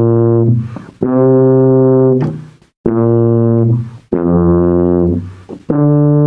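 Tuba played in a series of long held notes, each about a second long with a short breath between them, the fourth one lower: tuning notes checked against a clip-on tuner.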